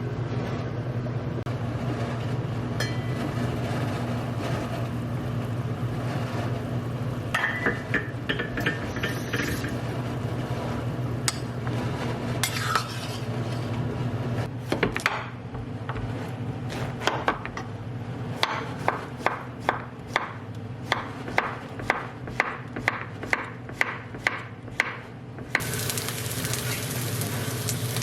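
Home kitchen cooking sounds over a steady low hum: utensils clinking and stirring against dishes, then a run of sharp, even taps about twice a second. Near the end, food starts sizzling in a hot frying pan.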